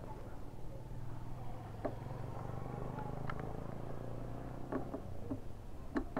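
A motor running with a low steady hum, fuller through the middle, with scattered sharp clicks and light knocks, the sharpest near the end.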